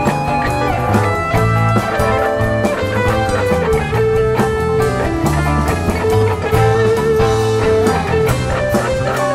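Live rock band playing an instrumental jam: an electric guitar lead with held notes over drums and bass guitar.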